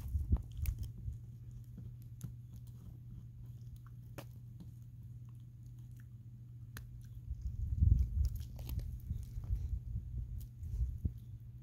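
American Akita puppy gnawing on a dry tree branch: scattered sharp cracks and crunches of teeth on wood over a steady low hum. A few louder low thumps come about two-thirds of the way through and again near the end.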